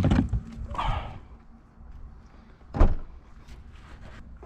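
A click and some rustling, then one heavy thump nearly three seconds in, which the driver takes for something falling in or around the car.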